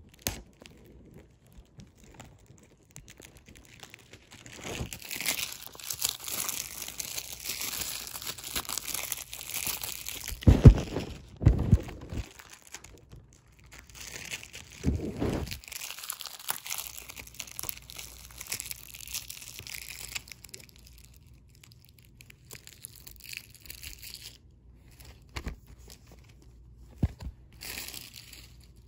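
Packaging being unwrapped by hand, crinkling and tearing for about fifteen seconds, with a few heavy thumps midway. Sparser handling and a couple of sharp knocks follow near the end.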